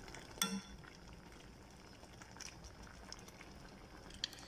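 Shrimp sinigang broth boiling gently in a stainless steel pan, a faint bubbling patter. A light clink about half a second in and another click near the end, as the spoon works in the pan.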